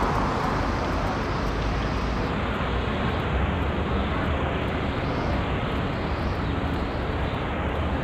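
Steady city street noise, mostly the low rumble of road traffic, even in level throughout.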